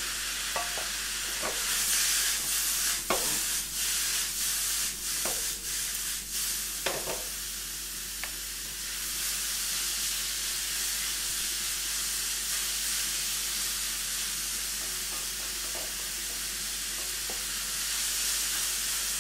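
Vegetables and shiitake mushrooms sizzling as they stir-fry in a hot wok, a steady frying hiss. Over the first half, a wooden spoon stirring knocks against the wok several times; after that the sizzle runs on evenly.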